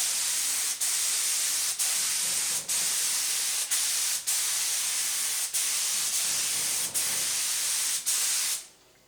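Spray gun applying a coat of finish to the wood: a steady hiss of atomised spray, broken by brief dips about once a second as the trigger is eased between passes, cutting off near the end.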